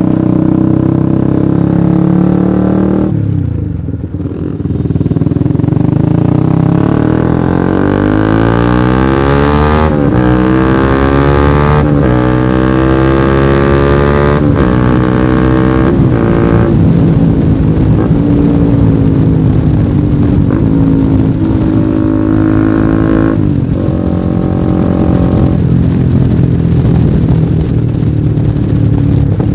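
Honda CBR150R's single-cylinder 150 cc engine, heard on board through a lightly modified exhaust while riding. Early on the throttle closes briefly and the engine note drops. Then the revs climb several times in a row, with short breaks as it shifts up, before it settles to a steady cruise; a brief throttle lift comes near the end.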